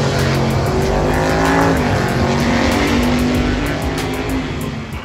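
Drag race cars launching and accelerating hard down the strip, their engines revving up in pitch and then fading as they pull away near the end.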